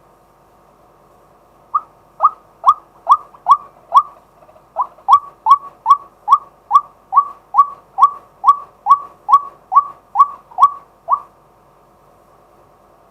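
Male White-breasted Waterhen giving its repeated 'kwak' call: about twenty short, clipped notes at roughly two a second, with a brief pause after the first few. The calls stop near the end.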